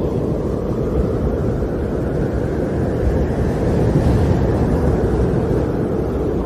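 Snowstorm wind blowing in a steady low rush, swelling slightly about halfway through.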